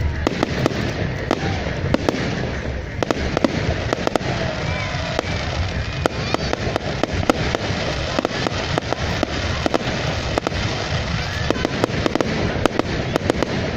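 Fireworks display going off: a dense, continuous run of sharp crackles and pops over a steady rumble, with no pauses.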